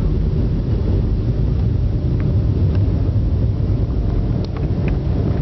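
Cabin noise inside a Boeing 757-200 on its takeoff roll: a steady, loud low rumble of the engines and the wheels on the runway, with a few faint rattles from the cabin.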